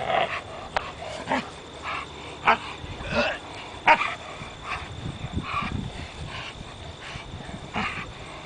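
Belgian Malinois vocalising in short, irregular bursts about once a second while it grips and tugs a bite pillow on a back tie.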